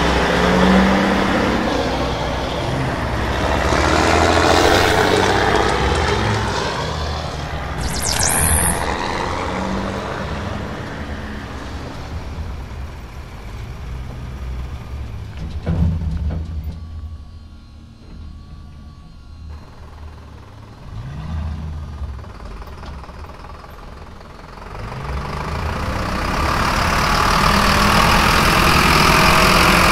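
Truck engine sounds running and revving, with a short hiss like an air brake about eight seconds in; quieter through the middle, louder again near the end.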